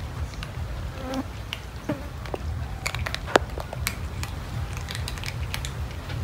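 Several cats crunching dry kibble: a scatter of sharp clicks and cracks, thickest from the middle onward and loudest about three and a half seconds in, over a steady low hum.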